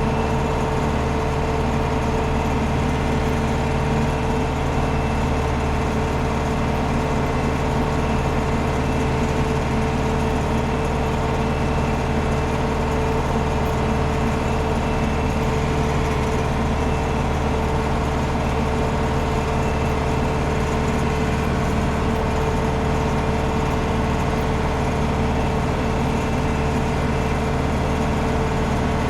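Landini Blizzard 65 tractor engine running steadily at working revs, driving a Taarup flail mower through the PTO as it cuts grass, heard from inside the cab.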